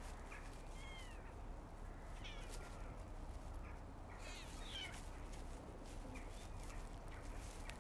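Day-old kittens mewing: several short, high, squeaky cries that rise and fall in pitch, scattered through, over a faint steady low hum.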